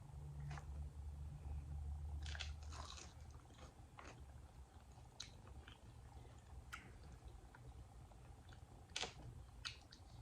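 Faint crunching bites and chewing of a crispy fried peach mango pie: a scattering of short crackles at irregular intervals, over a low steady hum.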